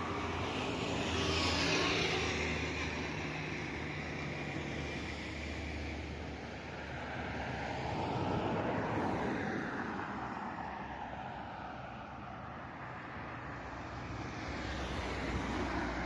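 Motor vehicle noise: a low steady engine hum under a rushing road noise that swells and fades three times.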